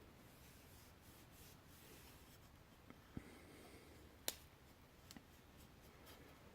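Near silence broken by small handling noises: a soft knock about three seconds in, one sharp click a little after four seconds, and a couple of faint clicks about a second later.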